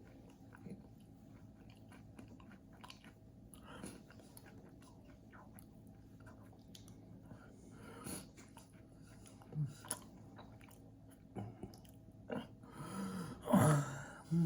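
Close-up chewing of a large mouthful of Rice Krispie treat: soft, sticky mouth clicks and small crunches, with a louder breathy sound about 13 seconds in.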